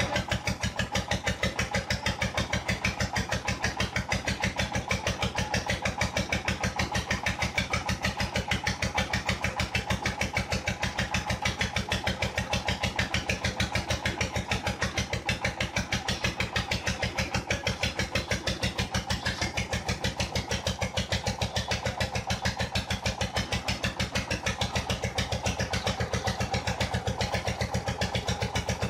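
Engine of a tube-well boring rig running steadily, with an even, rapid chugging beat and a faint whine over it.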